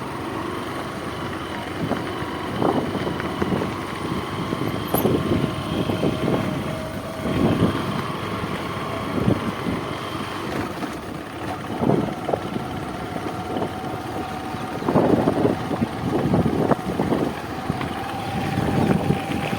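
A motor vehicle's engine running steadily, its pitch shifting slightly, with wind gusting on the microphone.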